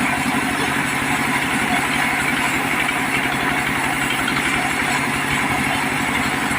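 Diesel engine driving a mobile sawmill, running steadily at an even speed.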